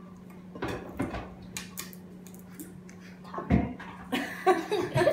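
Dinner-table clatter: a few light clinks and knocks of cups, plates and cutlery over a low steady hum, with a heavier thump about three and a half seconds in. Voices start near the end.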